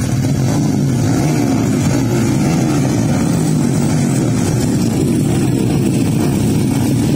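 A pack of dirt bike engines running together on a race start line, a steady dense drone with many pitches wavering up and down as throttles are blipped.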